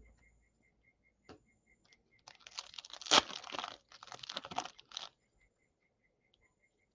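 A foil-wrapped 2024 AFL Select Footy Stars trading-card pack being torn open and crinkled by hand. A run of ripping and crinkling starts about two seconds in, is sharpest about three seconds in, and stops about five seconds in.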